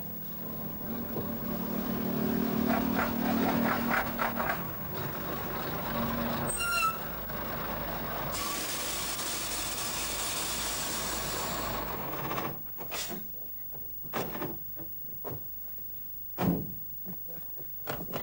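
Lorry pulling up: its engine runs and grows louder, a brief brake squeal comes about seven seconds in, then a hiss of air from the air brakes lasts about four seconds. After that the engine is off, and a few separate knocks follow.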